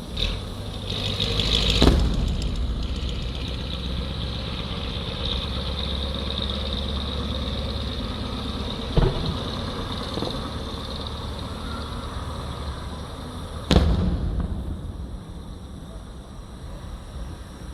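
Distant fireworks bursting: sharp booms about 2 s in, about 9 s in, and the loudest near 14 s, with a few weaker pops between them, over a steady low rumble.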